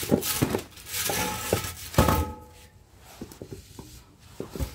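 Metal clanks and knocks from handling a scrap two-layer radiator. A few strikes ring briefly, the loudest about two seconds in, followed by lighter taps.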